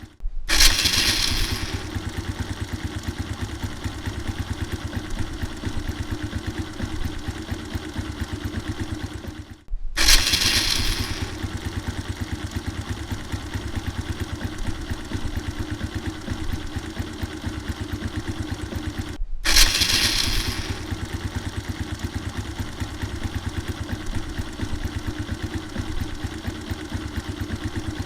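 Small motorcycle's electric starter whirring briefly as the engine catches, then the engine idling with a rapid, even beat. This start-and-idle happens three times, each idle cut off abruptly after about nine seconds.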